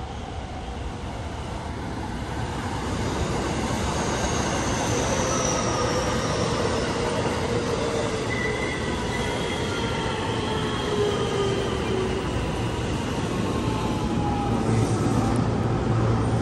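JR West electric multiple-unit train running along the station platform. Wheels rumble steadily on the rails, and several whining tones fall slowly in pitch, growing louder over the first few seconds.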